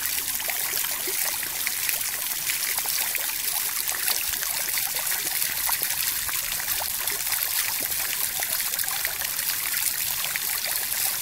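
Shallow stream running over stones: a steady trickling rush of water with small splashy ticks.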